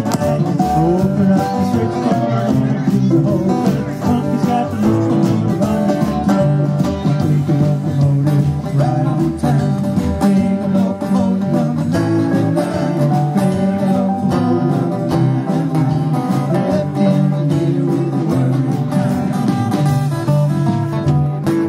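Live band playing a country-blues song: strummed acoustic guitar over electric bass, with drums keeping a steady beat.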